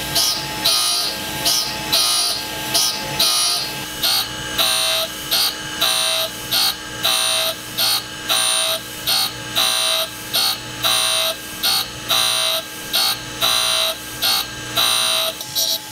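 Cutter grinder's wheel running and grinding a high-speed steel tool bit under coolant, the grinding noise swelling and falling in quick, even passes about one and a half times a second.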